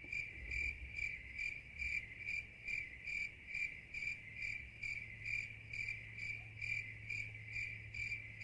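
Crickets chirping: a steady, high, rhythmic chirp pulsing about two to three times a second, with a faint low hum beneath it. This is the stock comedy "crickets" sound effect that signals an awkward silence.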